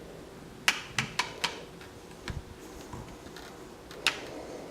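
Light plastic clicks and taps from a Play-Doh extruder machine being pressed down: a quick run of four sharp clicks about a second in, a softer one mid-way and one more near the end.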